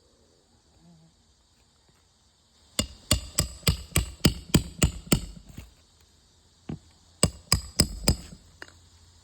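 Hand hammer striking in quick runs, about three blows a second: nine or so blows, a pause with one stray blow, then four more.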